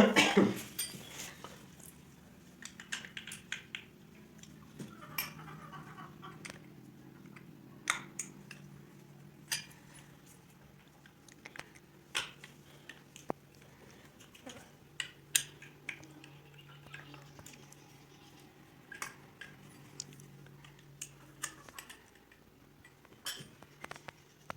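Small metal carburetor parts clinking and tapping as the carburetor is taken apart by hand. Irregular sharp clicks run throughout, with a louder knock right at the start.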